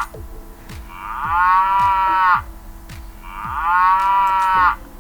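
Cow mooing: two long, drawn-out moos, the first about a second in and the second about three seconds in.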